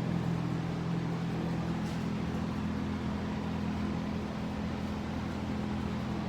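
Steady low mechanical hum with no strokes or other events: a constant background machine drone.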